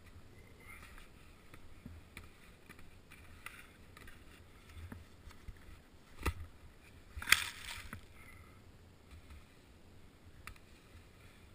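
Skis and poles moving slowly through deep powder snow: soft scuffing and crunching, with a sharp knock about six seconds in and a louder brief rush of snow about a second later.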